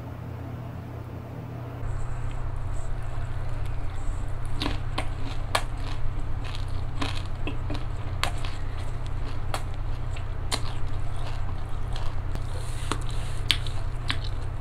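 Chewing and crunching of shell-on mala shrimp, with sharp crunches roughly every second or so, starting about two seconds in.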